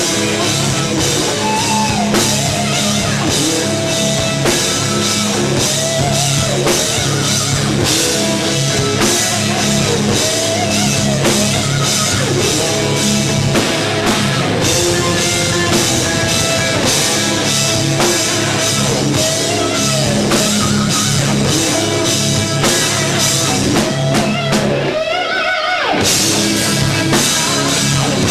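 Heavy metal band playing live: distorted electric guitars, bass and drum kit. Near the end the drums and cymbals drop out for about a second before the full band comes back in.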